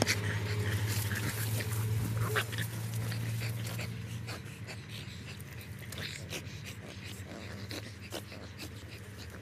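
French bulldogs breathing hard and panting as they play with a ball, louder for the first few seconds, with a few short scuffs and clicks.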